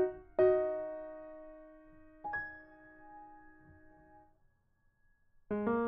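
Light background piano music. A chord rings out and slowly fades, a single note comes in about two seconds in, and the sound dies away almost to silence before new chords start near the end.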